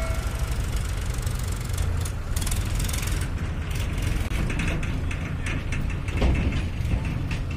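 Swaraj 855 FE tractor's three-cylinder diesel engine running steadily under load as it pulls a trolley fully loaded with soil through loose earth.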